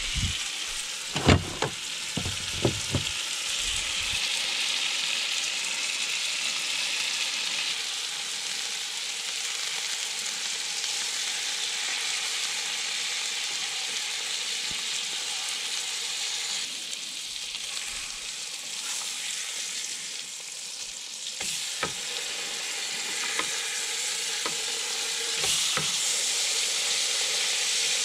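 Steaks sizzling as they fry in a skillet, a steady hiss, with a few sharp knocks in the first seconds and the clink of a spoon or spatula against the pan now and then. The sizzle grows a little louder near the end.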